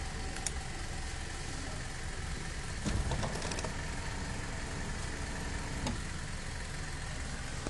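BMW E39 power seat adjuster running, a steady low hum with clicks from the seat's gearbox, a few around three seconds in and one near six seconds. The clicking is the cranking noise of a faulty seat gearbox.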